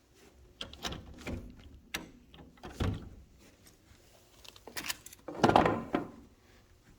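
A door being opened, most likely a sliding door, amid footsteps and knocks of handling. The loudest sound is a longer scraping rush about five and a half seconds in.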